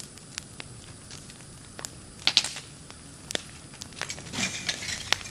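House fire crackling, with scattered sharp pops. The loudest pops come a little over two seconds in, and there is a burst of denser crackling near the end.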